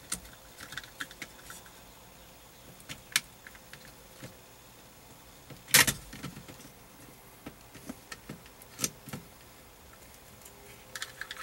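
Scattered plastic clicks and taps as a steering-column clock spring assembly is unclipped and worked loose by hand, with one sharper click about halfway through.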